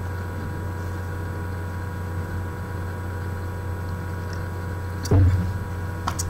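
Steady low electrical hum with a faint set of fixed tones above it, broken by a single thump about five seconds in and a small click just after.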